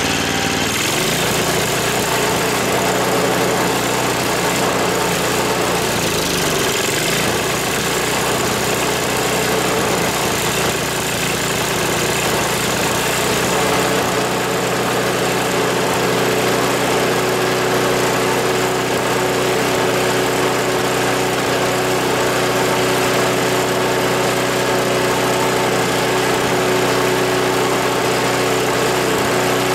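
Tecumseh HSSK40 4 hp Snow King four-stroke engine running on the bench, with no load. Its speed shifts during the first several seconds as the carburetor is adjusted, then holds steady.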